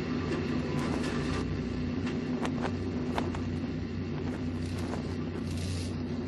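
A steady low mechanical drone with a constant hum, and a few faint clicks around the middle.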